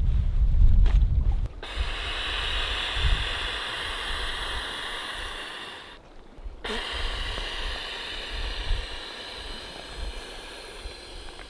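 Wind rumbling on the microphone for the first second and a half, then two long breaths blown into the valve of an inflatable air pillow, with a short break to inhale about six seconds in.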